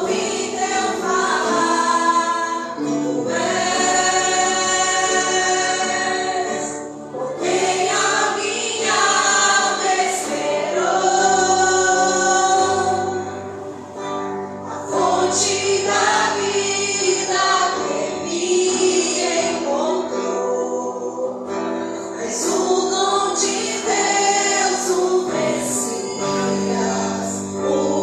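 Gospel worship song performed live: singers holding long sung phrases over band accompaniment.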